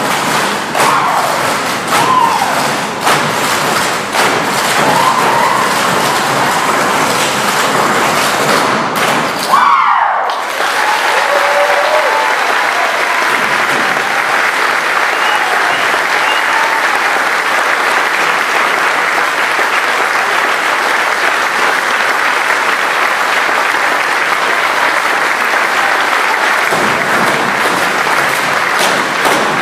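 Clogging taps from a team of dancers on a stage floor, a fast clatter that stops abruptly about ten seconds in. An audience then applauds steadily until the end.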